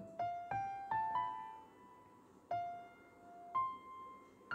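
Soft background piano music: single notes struck one at a time, each ringing and fading. It opens with four notes climbing in pitch in the first second or so, then a few sparser notes with pauses between them.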